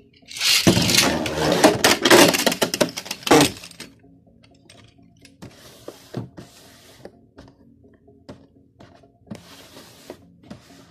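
Beyblade Burst spinning tops Lucifer the End and Helios Volcano clashing in a plastic stadium: a loud, dense rattle of hits for about three seconds, then two quieter spells of scraping and clicks.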